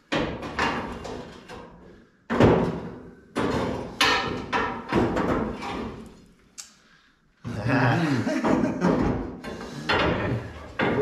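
A length of 1-inch steel knocking and clanking against the frame of a 1949 Chevy as it is forced into place: a series of sharp knocks, each ringing briefly, then a busier run of knocks and scraping in the last few seconds.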